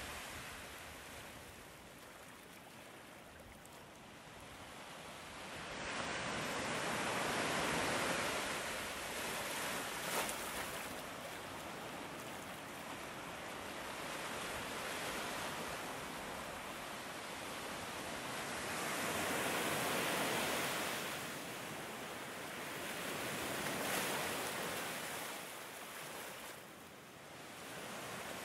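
Ocean surf, waves breaking and washing up the beach in slow surges that swell and fade several times.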